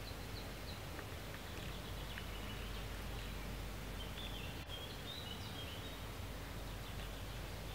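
Steady outdoor background noise with a low rumble, and faint high bird chirps, including a short twittering call about four to five seconds in.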